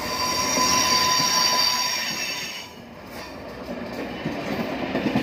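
Stainless-steel passenger coaches of a locomotive-hauled train rolling past a platform, their wheels squealing with a steady high-pitched tone over the rolling noise. About two and a half seconds in, the squeal stops and only a quieter rumble with a few clatters remains.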